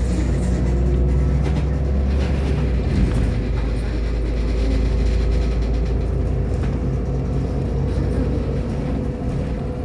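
Irisbus Agora L city bus engine running steadily while the bus drives, with a steady whine above it. There is a brief knock about three seconds in, and the engine note shifts at about the same moment.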